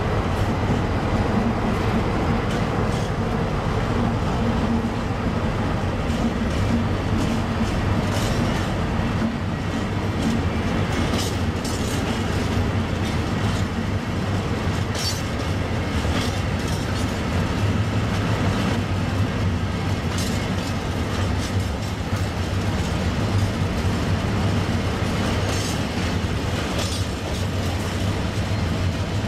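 A Class 70 diesel locomotive passing, then a long rake of empty intermodal container flat wagons rolling by: a steady rumble of wheels on rail with scattered clicks and clatter from the wheels over rail joints.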